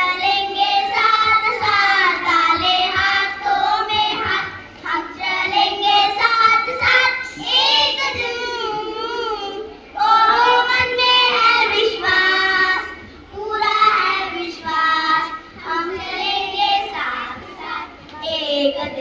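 A group of young children singing a song together in unison into a microphone, in phrases with short breaks between them.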